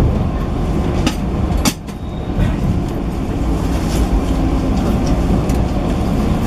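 Running noise inside a 185-series electric train car: a steady low rumble with a few sharp clicks of the wheels over rail joints or points. The noise briefly drops just before the two-second mark.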